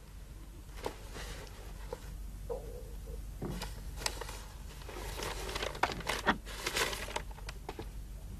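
Soft rustling of robes and of a sheet of paper being handled, with scattered light clicks and knocks over a faint low hum.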